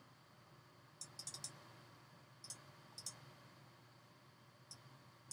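Faint computer mouse clicks: a quick run of about five about a second in, then a few single and paired clicks spread over the following seconds, as mask points are clicked and dragged.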